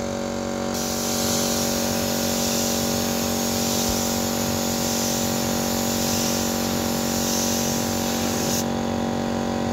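Air spray gun hissing as it sprays paint onto a wooden chair, starting just under a second in and cutting off near the end, over the steady hum of the air compressor that feeds it.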